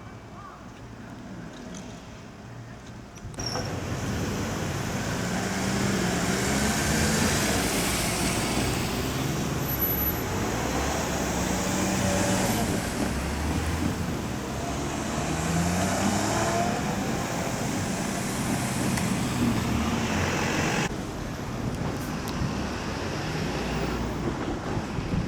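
Road traffic driving past: cars and heavier vehicles, engines pulling away and climbing in pitch over steady road noise. The traffic comes in suddenly and loudly about three seconds in and eases off a few seconds before the end.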